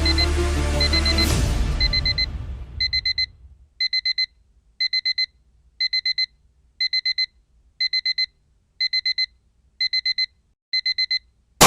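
Electronic alarm-clock beeping in groups of four quick high beeps, about one group a second, while music fades out over the first few seconds. Near the end a single loud sudden hit, after which the beeping stops.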